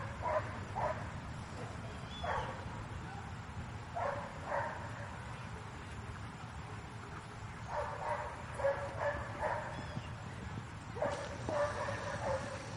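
A dog barking in short runs of several barks, repeated every few seconds.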